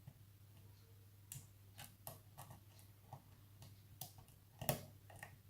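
Lock pick working the pins of a challenge lock under tension: faint, irregular small clicks and taps, the sharpest about three-quarters of the way through, as pins are lifted and set.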